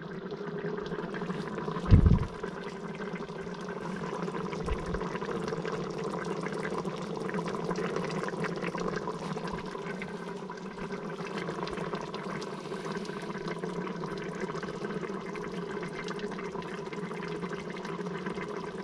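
Chili casserole bubbling steadily in an open electric pressure cooker on the sauté setting, heating to melt the cheese on top. There is a single knock about two seconds in.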